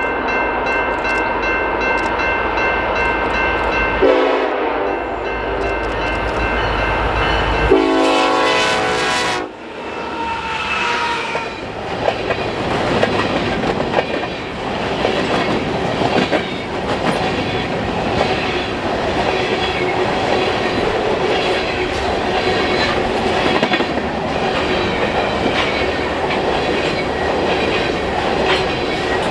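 Diesel freight locomotive's horn sounding for about the first nine seconds in a few long blasts. Then a freight train runs past at speed, its wheels clattering over the rails.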